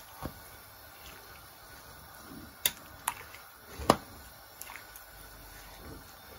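Grated carrots being stirred into milk in a metal pan with a spoon, with several sharp clinks of the spoon against the pan, the loudest about four seconds in.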